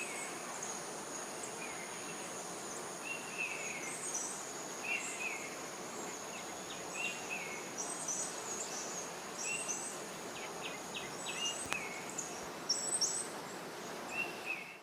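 Small birds calling in short chirps, every second or so, over a steady high-pitched insect drone, with sharper high chirps bunching up near the end.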